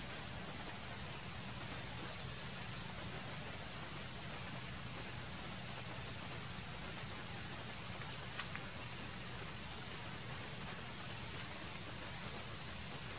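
Steady high-pitched drone of insects, with a faint tick about eight seconds in.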